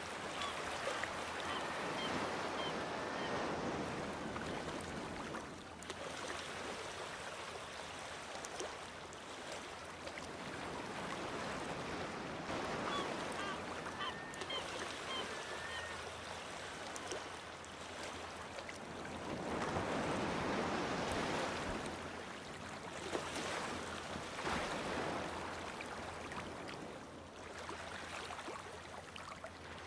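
Sea waves breaking on rocks, washing in and drawing back in slow surges, with one larger surge past the middle. A few short bird calls sound a couple of seconds in and again near the middle.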